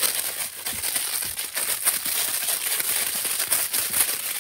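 Continuous crinkling and rustling, with a few sharper crackles along the way.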